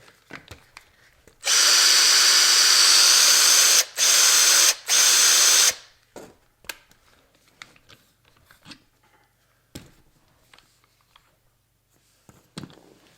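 Power drill running in three short runs with two brief stops between them, about four seconds in all. Afterwards, scattered light clicks and knocks of parts being handled.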